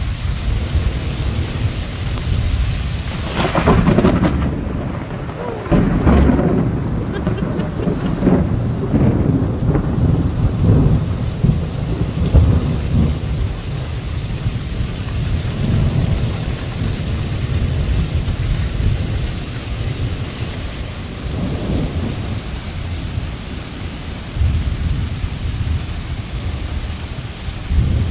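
Thunderstorm: steady rain with long rolls of thunder, which swell about four and six seconds in and keep rumbling on.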